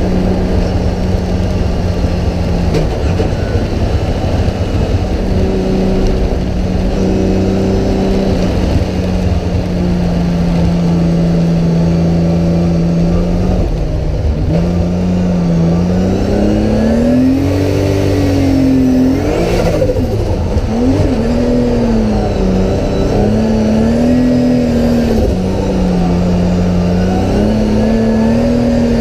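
Toyota GT86 drift car's engine heard from inside the cabin, running loud at a steady pitch at first, then revving up and down again and again from about halfway through as the car is drifted around the track.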